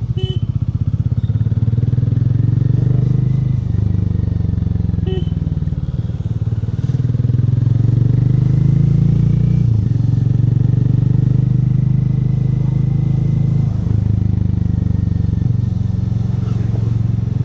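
Hero Mavrick 440's single-cylinder engine through its stock exhaust, running with a steady low pulsing note. Its pitch drops and picks up again several times, about 4, 10 and 14 seconds in.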